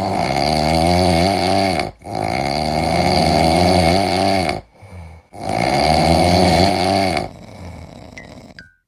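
Cat snoring: three long, loud snores of about two seconds each, with short pauses between them.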